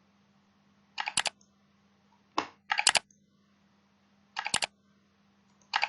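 Recorded mouse-click sound effect played back as on-screen buttons are clicked, in four or five quick groups of sharp clicks a second or so apart.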